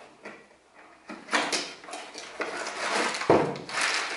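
Cardboard and plastic packaging rustling and crinkling as small coilover hardware is unpacked from its box, with a single knock about three seconds in.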